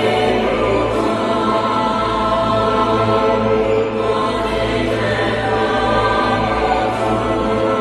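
Background music with choir-like sustained voices and a steady low drone.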